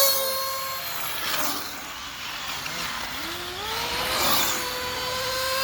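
Radio-controlled race cars running on the track: a steady high motor whine that drops in pitch about three seconds in as a car slows, then climbs back as it accelerates, with two brief bursts of tyre and dirt noise.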